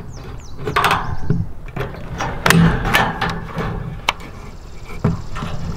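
Irregular sharp metallic clicks and snaps of hand tools working wire mesh against a wooden frame, about eight in a few seconds, the loudest a couple of seconds in.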